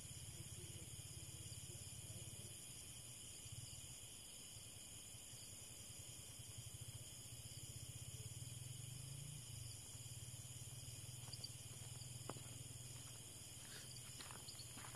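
Faint chorus of crickets chirring steadily in grass at night, over a low steady hum. A few faint footsteps come in near the end.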